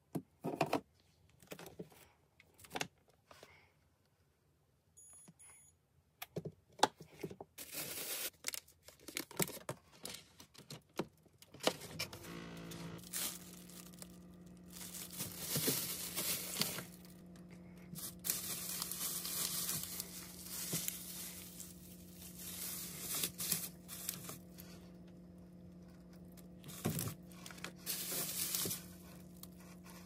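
Plastic bags and food containers rustling, crinkling and clicking as they are picked up and moved about on refrigerator shelves. About twelve seconds in, a steady low hum starts and carries on under the handling noises.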